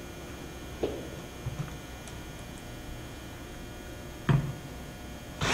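A steady low hum with a soft click about a second in and a sharp knock about four seconds in, as aluminum hanging clips and a drill are set against a wooden panel. At the very end a Bosch cordless drill starts to whir, driving a screw through a clip.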